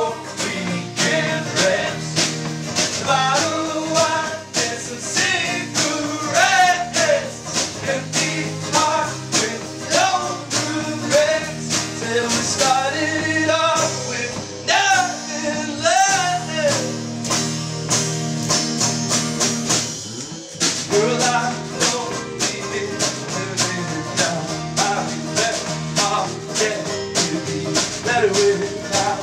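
Folk-punk song: a guitar strummed to a steady beat under a singing voice.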